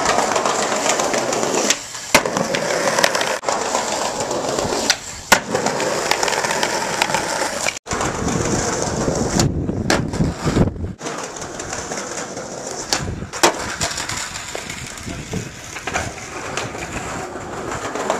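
Skateboard wheels rolling over stone paving with a steady rumble, broken by several sharp clacks of the board hitting the ground during tricks.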